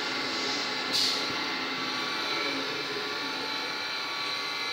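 Steady workshop machine drone, with one sharp metallic click about a second in as a valve spring compressor is worked on the valve collets of a BMW inline-six cylinder head.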